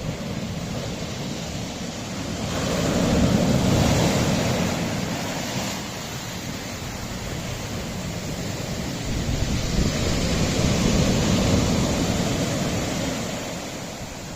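Sea waves washing onto a rocky shore: a steady rush that swells twice, about seven seconds apart, as waves break.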